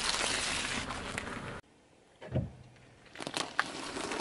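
A car tyre rolling over and crushing things on asphalt. A steady crunching noise cuts off suddenly about a second and a half in, followed by a dull thump. From about three seconds in comes crackling and crunching as the tyre presses down on a frosted cake.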